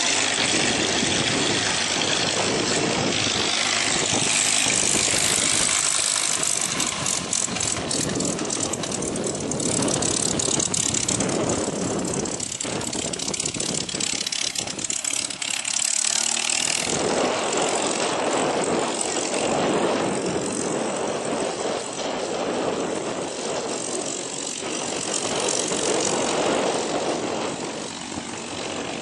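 Propeller warbird's radial piston engines running, a loud, steady noise that swells and eases a little over the seconds.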